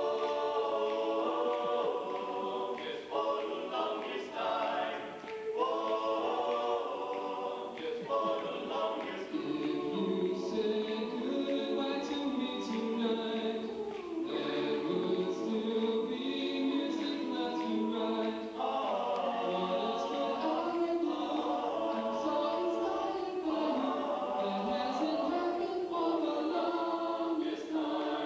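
High school men's choir singing a cappella in close harmony.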